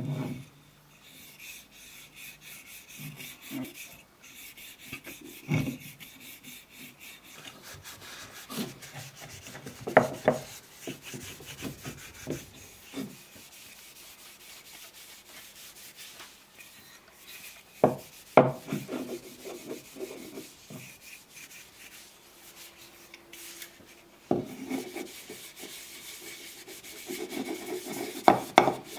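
A cloth rubbing and wiping over the wooden body of an old hand plane, with a few sharp wooden knocks as the plane is handled, the loudest about ten seconds in and again near the middle.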